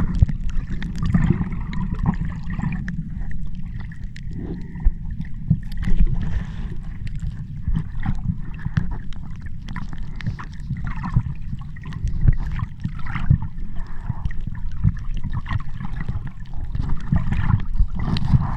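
Sea water sloshing and gurgling close to the microphone, with a steady low rumble and many small knocks and clicks.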